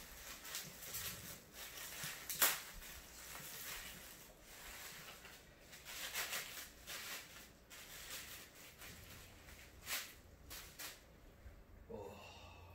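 Bubble wrap crinkling and rustling in the hands as a packed item is unwrapped, in uneven clusters, with one sharper crackle about two and a half seconds in.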